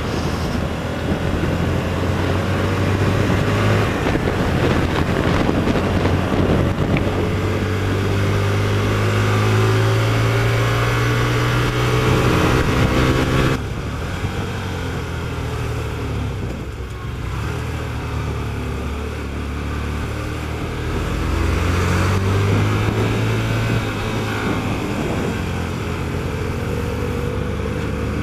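Hyosung 125cc V-twin motorcycle engine under way, heard from a helmet-mounted camera. The revs climb steadily for several seconds, drop off suddenly about halfway through as the throttle is closed, run lower and steadier, then climb again briefly near the end, over constant road and wind rush.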